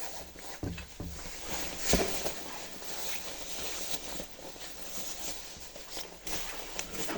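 Rustling of a jacket and backpack as the backpack is put on, with a few soft knocks and bumps, the sharpest about two seconds in.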